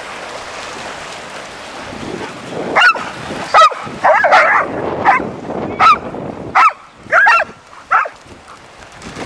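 A dog barking in play: about eight short barks over some five seconds, the first coming a little under three seconds in. Before them there is a steady rush of wind on the microphone.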